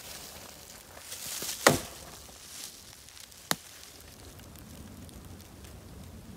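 A loud, sharp knock or crack close by, just before two seconds in, led by a brief rustle. A second, shorter and fainter click follows about two seconds later.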